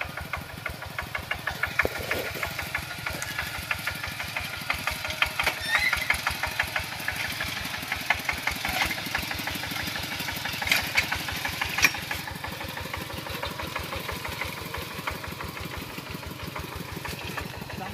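Kubota walking tractor's single-cylinder diesel engine running with a fast, even chug, with a few louder metallic clanks along the way.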